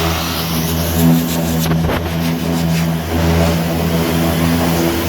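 Power sanding tool running steadily against the car body's sheet metal while the wheel wells are sanded clean, with a short burst of scraping about two seconds in.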